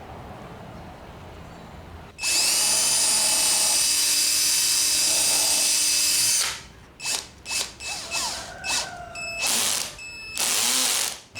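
A power tool's motor starts about two seconds in and runs at a steady high whine for about four seconds. It stops, then runs again in several short trigger bursts and one longer one near the end.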